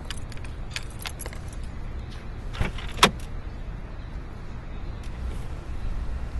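Keys jangling and clicking as a key is worked in a car's door lock, then two sharp clicks about three seconds in as the door latch releases and the door opens. A steady low street rumble runs underneath.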